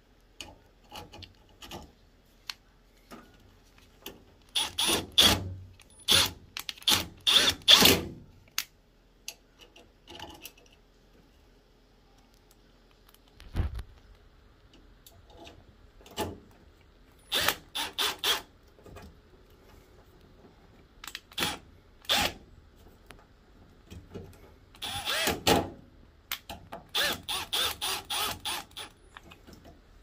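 Hand screwdriver driving screws into a washing machine's water inlet valve bracket, heard as three bursts of rapid clicking with a few single clicks between them and one dull knock midway.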